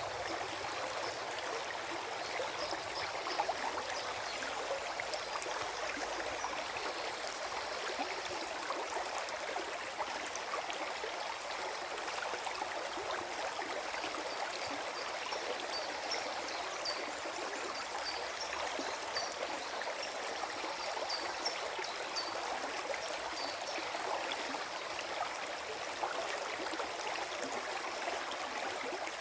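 Small forest stream flowing steadily over stones, with a continuous gurgling rush of water.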